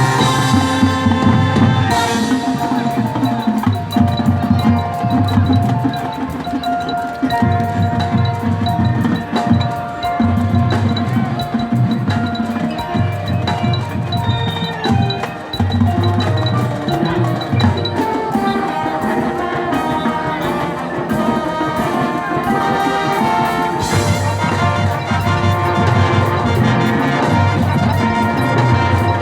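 A marching band playing: held pitched chords over a pulsing low drum part, with bell-like mallet percussion prominent.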